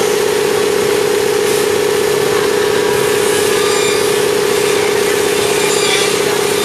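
CNC corner cleaning machine for welded plastic window-frame corners running: a steady, loud mechanical hum with one constant mid-pitched tone over a hiss.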